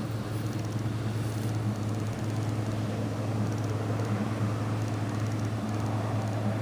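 A steady low mechanical hum under a constant noisy rush, from a running engine or motor.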